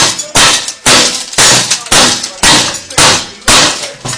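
Hammer blows struck over and over, about two a second, each a loud sharp impact with a brief ringing tail.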